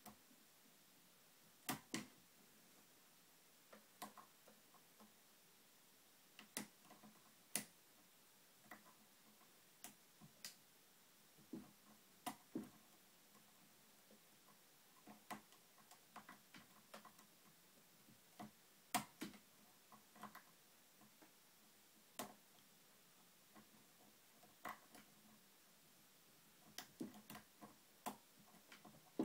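Irregular small clicks and ticks of a lock pick and tension wrench working the pins of a TrioVing oval pin-tumbler cylinder during single-pin picking, spaced a second or more apart.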